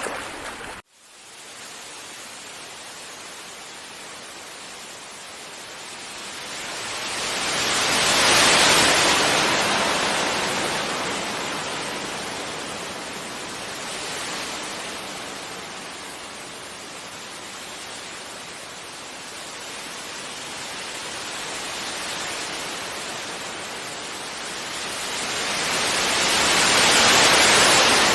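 Sea waves washing onto a beach: a steady rush of surf that swells slowly to two peaks, one about a third of the way in and one near the end. There is a brief sudden dropout just under a second in.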